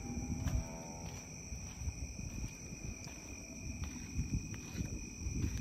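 Insects trilling steadily as two unbroken high tones, over low irregular handling and footstep noise on the microphone. A faint, short pitched sound comes in the first second.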